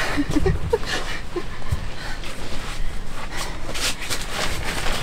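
Rustling and shuffling of a person moving about inside an inflated liferaft's canopy, with a few short breathy vocal sounds in the first second or so.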